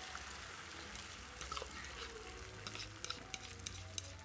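Beaten egg with chopped green onion frying in a hot pan, sizzling steadily with many scattered crackles and pops, more of them from about halfway through.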